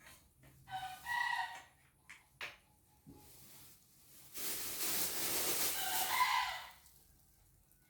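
Domestic chickens calling: a short call about a second in, then a longer, harsh call from about four seconds to nearly seven.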